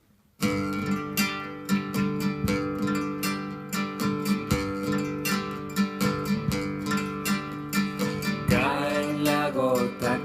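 An acoustic guitar begins about half a second in and plays a song intro in a steady strummed rhythm. A voice starts singing near the end.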